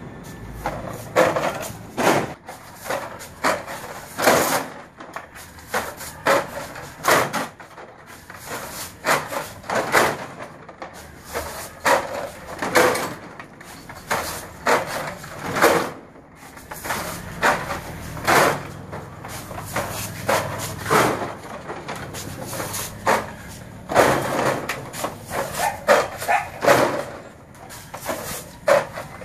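Plastic San Miguel beer crates clattering as they are thrown down from a delivery truck and caught, a sharp knock about once a second.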